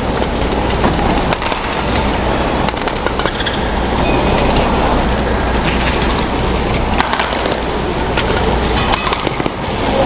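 Indoor badminton arena ambience: a steady crowd murmur under sharp, irregular racket hits on the shuttlecock during a rally, with a brief shoe squeak on the court floor about four seconds in.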